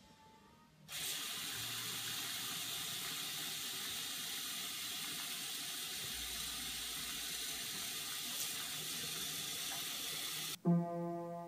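A bathroom faucet is turned on about a second in and runs a steady stream into a porcelain sink, then stops abruptly near the end. A few held piano notes follow.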